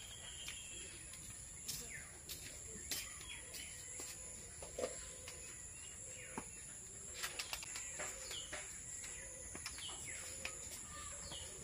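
Outdoor rural ambience: birds chirping now and then in short falling calls, with scattered light clicks and knocks, over a steady faint high-pitched hiss.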